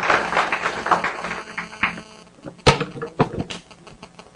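Audience applauding, which dies away about two seconds in, followed by a few separate sharp knocks.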